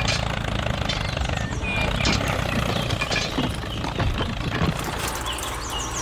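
Tractor engine idling with a steady low rumble, with a few light clicks over it.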